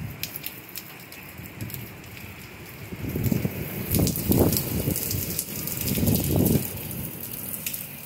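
Heavy nor'easter rain falling steadily, with a dense patter of drops ticking on nearby surfaces. From about three seconds in, strong wind gusts rumble on the microphone in irregular swells.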